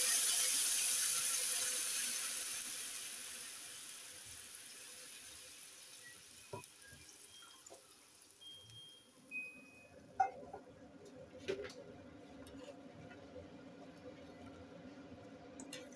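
Water poured into a pan of hot oil tempering, hissing and bubbling loudly, then dying down over the first few seconds. In the second half a few light clicks of a spoon stirring in the pan.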